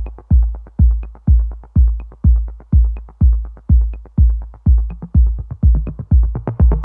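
Background electronic dance music: a steady kick drum about two beats a second, with short ticking hi-hats between the beats.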